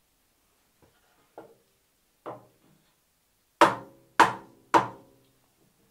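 A run of sharp knocks: a few faint taps, then three loud knocks about half a second apart a little past halfway, each ringing briefly.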